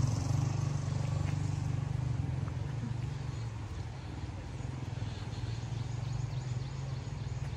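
A steady low rumble, easing slightly after the first few seconds.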